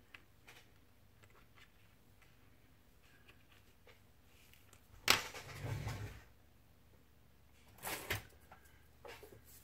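Handling noise from plastic model-kit sprues and sprue cutters being moved and set down on a cutting mat. A sharp click about five seconds in is followed by about a second of rustling and scraping, and a shorter rustle with clicks comes near the end.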